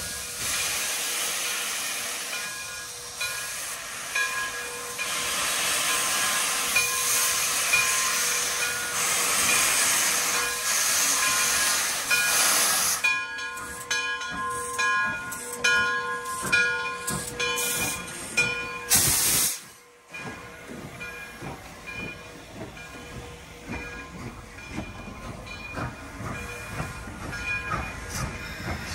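Frisco 1630, a 2-8-0 steam locomotive, working past with its cylinder cocks open: a loud steady hiss of steam for the first dozen seconds, then choppy exhaust puffs with ringing metallic tones. About twenty seconds in it drops abruptly to quieter puffs and clicks as the engine moves away.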